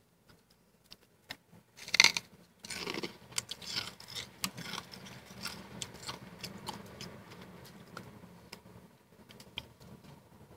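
Freezer frost being bitten and chewed: one loud crunch about two seconds in, then a run of crackling crunches that thins to scattered crackles.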